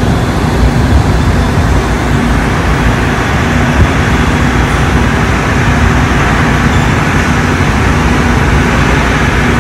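Steady machine-shop noise: a constant hum and rush of running machinery, with a faint tone that comes and goes.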